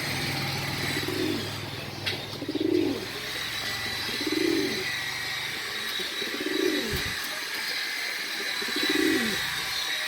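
Homing pigeon cooing: a low, bending coo repeated five times, about every two seconds.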